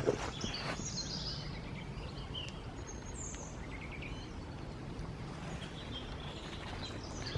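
Small woodland birds chirping and trilling in short calls during the first half, over a steady low background rumble. A couple of footsteps on the woodland path sound at the very start.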